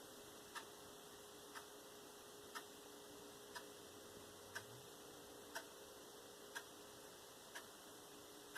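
Faint clock ticking steadily, once a second, over a low steady hum.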